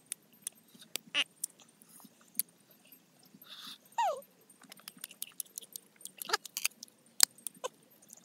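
Crisp green fruit crunched and chewed up close: a scatter of short, sharp crunching clicks. About four seconds in, a short falling squeal-like cry.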